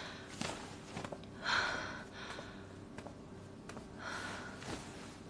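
Two breathy exhales, about a second and a half in and again about four seconds in, with a few faint taps of flip-flop footsteps on a tiled floor.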